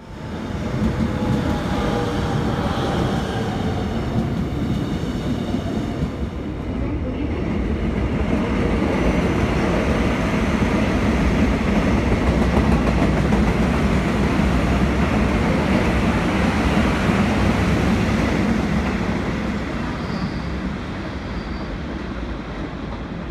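Seoul Subway Line 1 electric multiple-unit train running along the track, a steady rumble of wheels and motors with a falling whine in the first few seconds. The rumble grows louder through the middle, then fades as the train draws away.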